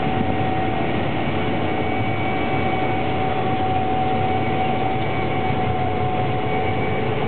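Gleaner R62 combine running while harvesting soybeans, heard from inside the cab: a steady machine drone with a constant whine over it.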